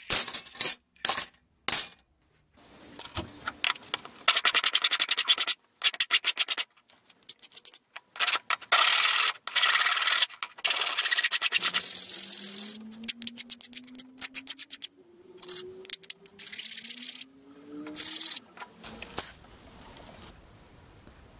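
Steel file scraping back and forth across a small wooden block in quick strokes, with a few rising squeaks among the strokes in the second half. Flat steel plates clink as they are handled at the start.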